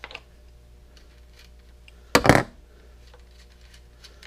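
Small metallic clicks from hand tools being worked on a bicycle's seat-clamp hardware, with one louder clatter about two seconds in.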